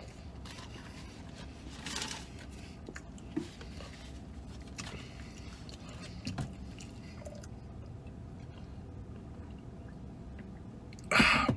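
A man chewing and eating French fries inside a car cab, with a few small mouth and handling noises. A short loud burst of noise comes about a second before the end, as he drinks from a shaker bottle.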